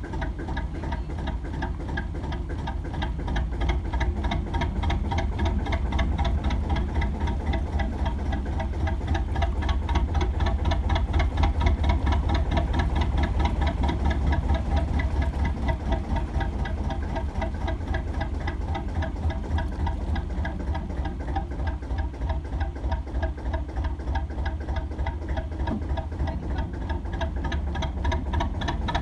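Lister JP2 two-cylinder diesel engine of a narrowboat running steadily at a slow tick-over with an even, rapid knocking beat, swelling a little in the middle.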